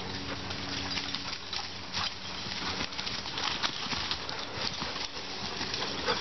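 Running footsteps of dogs and a person crunching and rustling through dry fallen leaves, in quick irregular crackles.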